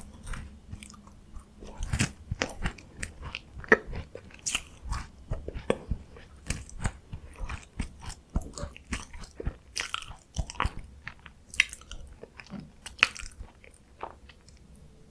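Close-miked chewing of crunchy Korean chocolate biscuit snacks, a dense, irregular run of crisp crunches and bites that thins out near the end.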